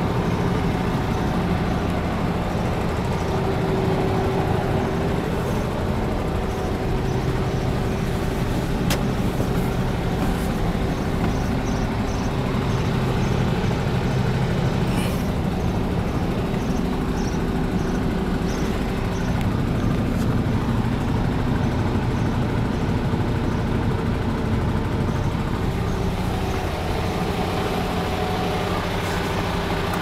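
MAN TGS 32.400 truck's six-cylinder diesel engine idling steadily, heard from inside the cab.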